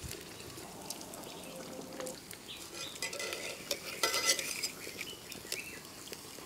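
Coconut oil sizzling and crackling as a nayyappam fritter fries in a deep pan, with steel spoons scraping and clinking against the pan, loudest about four seconds in as the fritter is lifted out and pressed.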